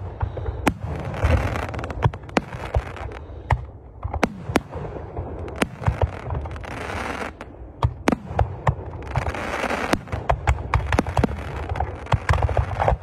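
Fireworks display: aerial shells bursting in sharp bangs at irregular intervals, several a second at times, over a continuous low rumble, with stretches of crackling.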